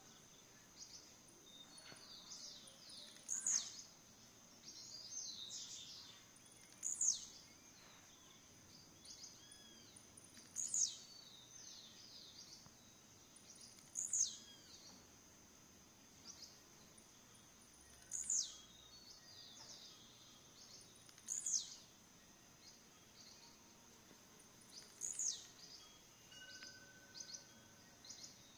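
Male papa-capim (seedeater) giving its courtship call: a short, sharp note that sweeps quickly down from a very high pitch, repeated about every three to four seconds, with fainter chirps in between. A faint steady high hiss runs underneath.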